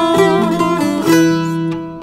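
A cura (small Turkish long-necked lute) and an acoustic guitar playing a Rumeli folk tune together, with a woman singing a wavering held note near the start.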